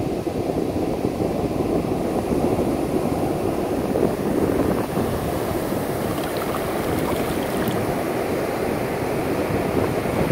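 Ocean surf washing up a beach: a steady rush of waves.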